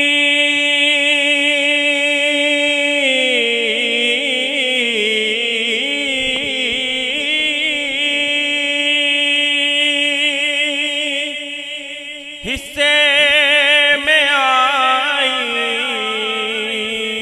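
A man's voice singing a naat into a microphone, with no words heard: a long held note, then wavering melismatic runs with vibrato. About twelve seconds in the voice drops away briefly, then comes back louder on a held, wavering note.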